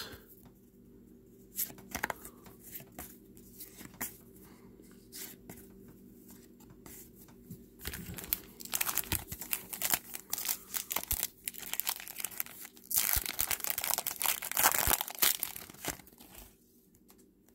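Foil wrapper of a Topps trading-card pack being torn open and crumpled, a run of sharp crinkling and tearing rustles starting about halfway through. Before that there are only a few faint clicks of cards being handled.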